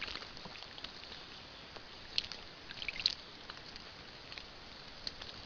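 Sparrows chirping in short high calls, the clearest about two and three seconds in, over a faint splashing of water as they bathe in a bird bath.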